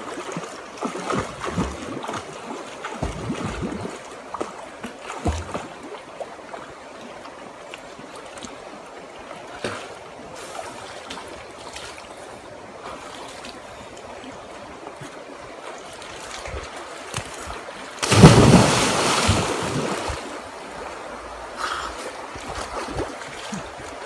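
Shallow river water flowing and splashing around people wading and bathing in it, with scattered small splashes. A much louder rush of noise comes about three quarters of the way through.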